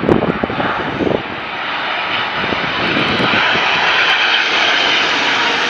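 Jet airliner's engines passing overhead on approach to land, a steady rushing engine noise that builds gradually. Wind gusts buffet the microphone in the first second.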